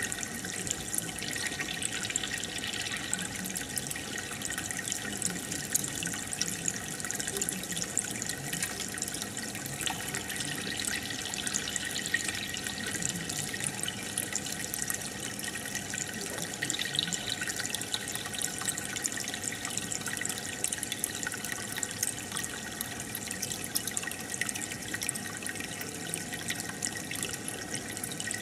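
Aquarium water trickling and bubbling steadily, with a constant fine patter of small drips and splashes.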